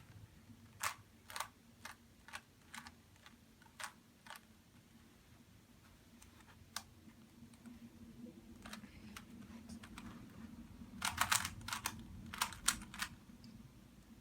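Plastic Rubik's cube being turned by hand, its layers clicking as they snap round. The clicks come irregularly, a few at a time, with a quick run of turns about eleven seconds in.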